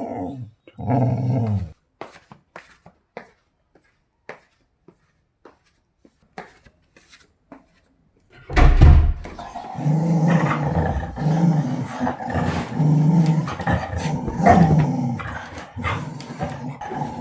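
English springer spaniel growling: a long, low, continuous growl that starts about eight and a half seconds in and swells and eases in pulses, after two brief low sounds near the start and a few faint clicks.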